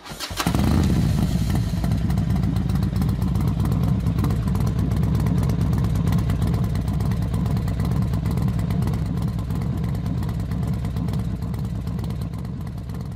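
Motorcycle engine running hard: a loud, dense low rumble with rapid firing pulses that sets in just after the start and eases a little near the end.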